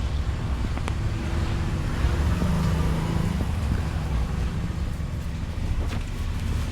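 Steady low rumble of road traffic, with a brief low engine hum about two seconds in and a couple of faint sharp clicks.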